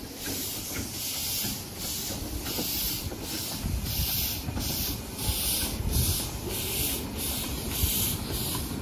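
Small 15-inch gauge steam locomotive moving off with its cylinder drain cocks open, steam hissing out in even chuffs about twice a second over a low rumble.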